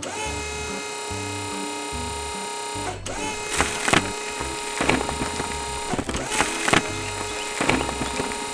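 Background music with a repeating bass pattern. From about three seconds in, a string of sharp clatters plays over it.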